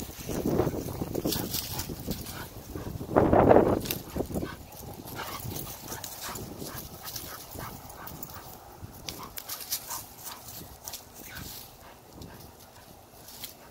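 A pit bull and a red heeler puppy playing rough, with dog noises and scattered crackling like paws in dry leaves. There is a louder burst in the first second and a louder one again about three and a half seconds in, then quieter crackles.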